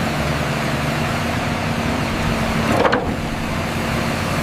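Steady rush of running water while a toy is washed, with a low steady hum under it and a short knock about three seconds in.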